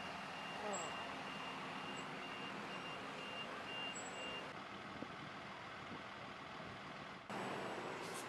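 Vehicle reversing alarm beeping in a steady repeated pattern over the engine and outdoor noise of vehicles, stopping about halfway through; the background noise changes abruptly near the end.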